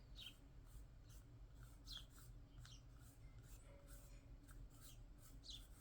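Near silence: low room hum with a few faint, high chirps that each fall quickly in pitch.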